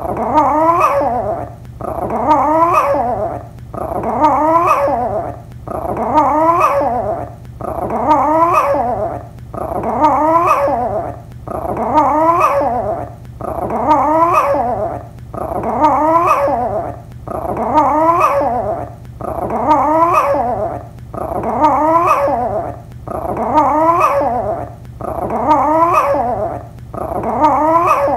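Yorkshire terrier giving drawn-out, wavering howling barks with its head raised, one call about every second and a half in a steady, even repetition.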